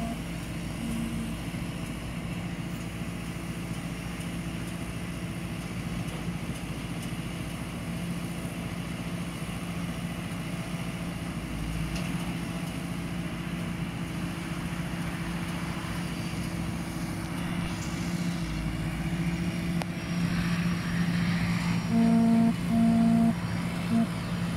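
Sonalika 90 tractor's diesel engine running steadily under load as it pulls a round baler through the straw. Near the end a pitched beep sounds three times, two longer beeps and one short one.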